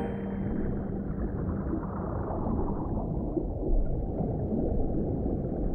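Muffled underwater water sound: a low gurgling rumble that grows duller after the first couple of seconds.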